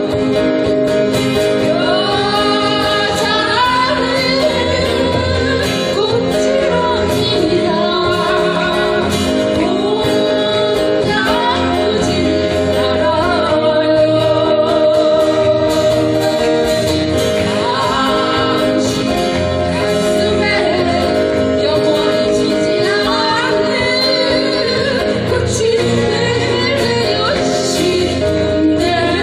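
Live band music: a singer performing a pop song with guitar accompaniment and a steady bass line.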